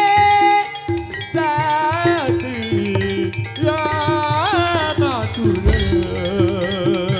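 Live gamelan-style music: metallophones struck in a steady, even pattern under a pitched melody line. The melody holds one long note, then breaks into sliding, wavering phrases about a second in.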